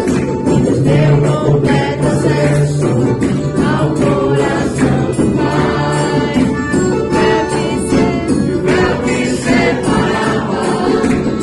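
Christian worship music: voices singing together over instruments, with a tambourine shaking along to the beat.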